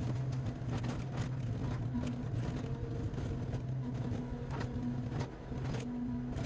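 Excavator's diesel engine running steadily under load, with scattered knocks and clatter of wall rubble falling as the walls are pushed down.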